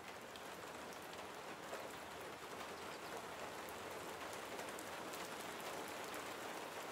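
Steady rain falling on a wet street and paving, with scattered light ticks of drops.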